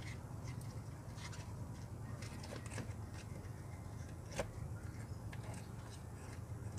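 Small clicks and rustles of plastic wiring and a connector being handled, from an LED headlight bulb kit, with one sharper click about four seconds in, over a low steady background hum.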